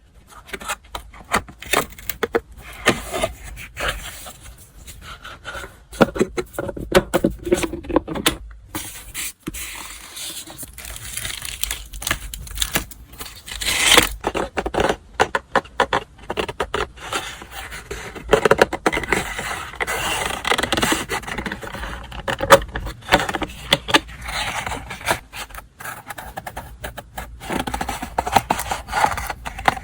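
Hands unpacking a parcel: paper and wrapping rustling and crinkling, with scrapes and frequent small clicks and taps.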